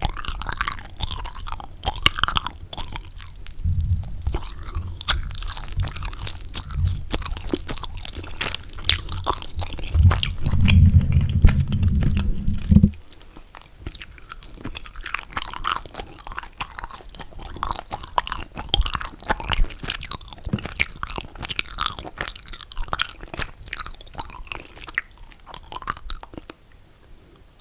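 Close-miked chewing of mochi: fast, wet, sticky mouth clicks and smacks. A deep low rumble underlies the chewing for the first half, loudest just before it cuts off abruptly about halfway through, after which the chewing goes on more quietly.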